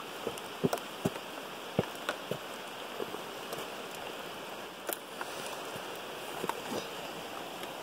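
Steady rush of river water, with scattered sharp clicks and knocks as a freshly caught catfish is handled.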